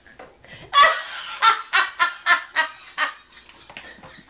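A woman laughing hard: a run of about seven loud 'ha' pulses, roughly three a second, that starts just under a second in and trails off after about three seconds.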